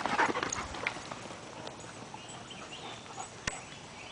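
A yellow Labrador retriever right up against the microphone, with short irregular scuffling noises loudest in the first second. After that the sound drops to a quieter outdoor background, with one sharp click about three and a half seconds in.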